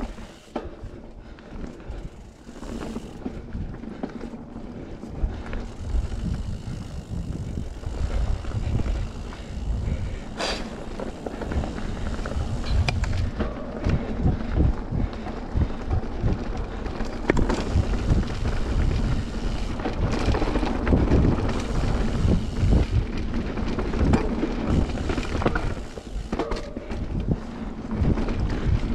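Mountain bike riding along a dirt trail: tyres rolling on dirt and the bike rattling over bumps, with wind buffeting the microphone. It grows louder about a third of the way in and dips briefly near the end.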